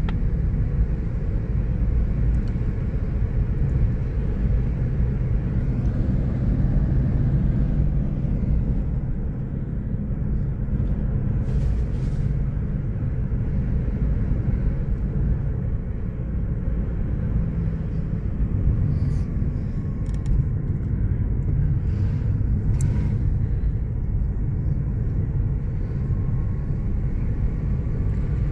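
Steady low rumble of a car driving, heard inside the cabin: engine and road noise, with a few faint clicks in the second half.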